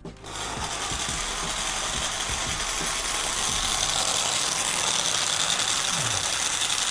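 Small battery-powered hobby motor switched on just as the clip begins, its spindle pressing on a bottle-cap wheel to drive a homemade toy car. It runs as a steady buzzing rattle.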